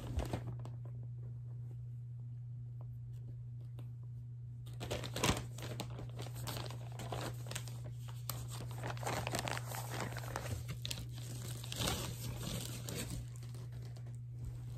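Packaging being handled and opened, with crinkling, rustling and some tearing that begins about five seconds in and comes in irregular bursts, over a steady low hum.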